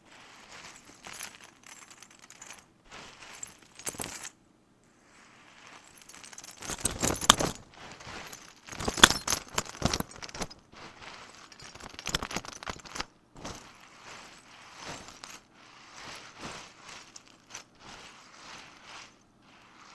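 Irregular clinking and rattling of small hard objects, loudest about seven to ten seconds in, with short pauses between bouts.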